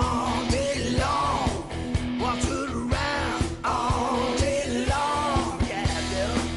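Rock music with a singing voice over a steady drum beat.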